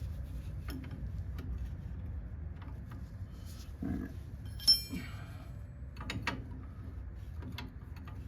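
Metal hand tools clinking and knocking during work on a truck's front suspension, with one sharp ringing clink about halfway through and lighter clicks around it over a low rumble.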